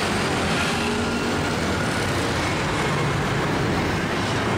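Steady road traffic, motor scooters passing on the roadway.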